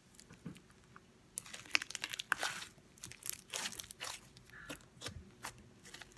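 Sticky, sprinkle-filled homemade slime being squished, stretched and pulled apart by hand, giving irregular crackles and small pops that begin about a second and a half in.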